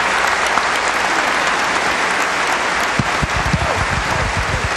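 Large audience applauding steadily. From about three seconds in, a run of low thumps sounds under the clapping.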